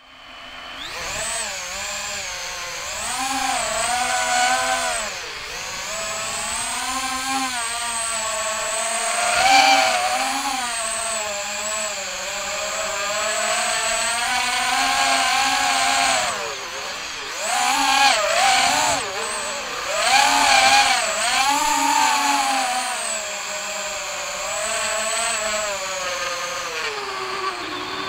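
FPV quadcopter's motors and propellers whining, the pitch rising and falling over and over as the throttle changes, with louder surges a few times.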